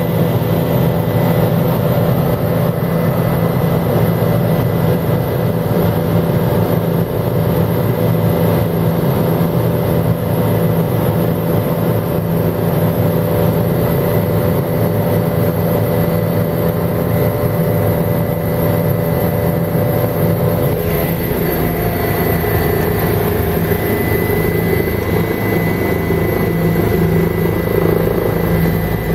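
Helicopter in flight heard from inside the cabin: the steady drone of the engine and rotors with a thin high whine above it. The tone of the drone shifts a little about two thirds of the way through.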